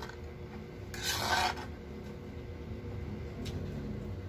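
A fork scraping across a food tray once, about a second in.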